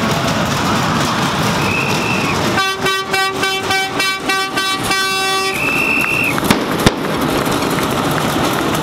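A horn sounds in a rapid series of short blasts over street crowd noise, with a shrill whistle just before and just after. Two sharp bangs follow in quick succession.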